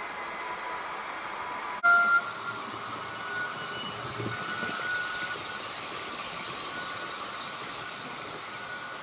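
H0 model trains running on a layout, with a model Railjet passing through: a steady hiss of wheels and motors. About two seconds in there is a brief loud tone.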